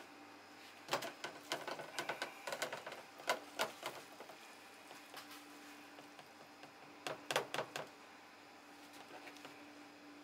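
Plastic colander and plastic tub knocking and clattering against each other and a stainless steel counter as they are handled, in two clusters of quick clicks, one about a second in and another a little past the middle. A faint steady hum runs underneath.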